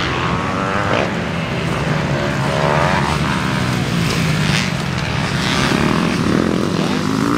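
Motocross dirt bike engines revving on the track, the pitch climbing and dropping again and again as the riders work the throttle and shift.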